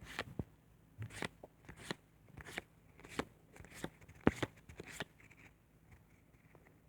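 Pokémon trading cards being handled and shuffled: short, irregular rustles and clicks, two or three a second, stopping about five seconds in.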